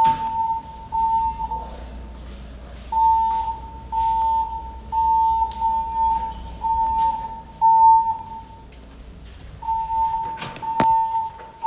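Building fire alarm evacuation tone: a steady, high beep repeating in groups of three, each group followed by a short pause, sounding between voice announcements. A single sharp click comes near the end.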